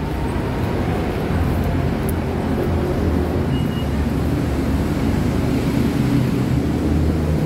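Steady low rumble of a busy rail station concourse, with no clear single event standing out.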